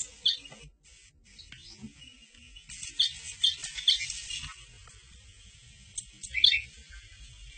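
Short high-pitched squeaks and chirps from a smartphone cat game, set off as the cat paws and taps the touchscreen, coming in small clusters about three seconds in and again near six and a half seconds.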